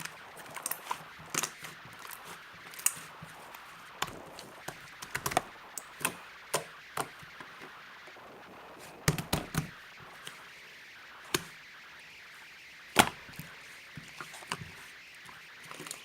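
Irregular sharp knocks and clicks, some single and some in quick clusters, with a few heavier knocks and one loudest knock near the end, over a faint steady hiss.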